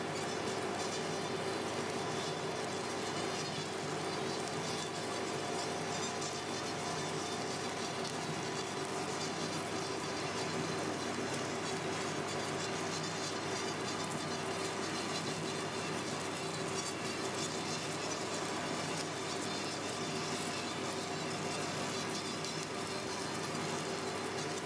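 Plastic string (sutli) making machine running: a steady buzzing motor hum over constant mechanical noise, even throughout.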